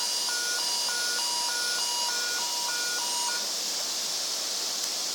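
Bedwetting alarm set off by a drop of water on its moisture sensor, sounding a two-note electronic beep that alternates high and low about three notes a second, then stops about three and a half seconds in. A steady hiss runs underneath.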